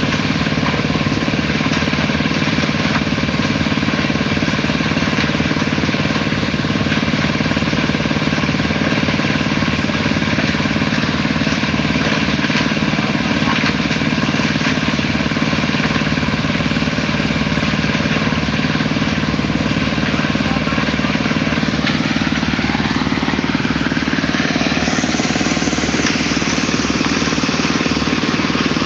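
Engine of a small portable concrete mixer running steadily. About three-quarters of the way through, a rising tone joins it and the sound turns brighter.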